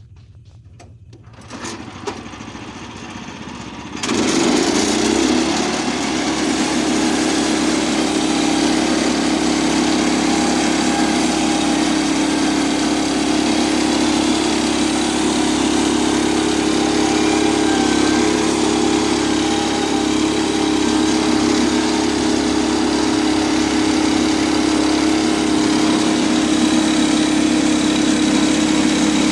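Small gasoline engine of a Woodland Mills HM122 portable band sawmill starting up about four seconds in, then running steadily at high speed.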